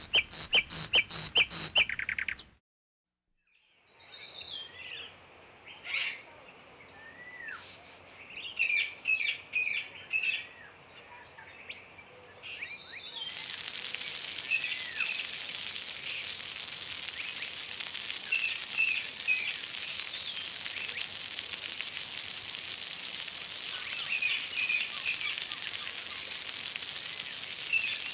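A short run of rapid, evenly spaced pitched pulses, then after a brief silence birds chirping and singing. About thirteen seconds in, a steady rush of splashing fountain water cuts in suddenly and carries on under the birdsong.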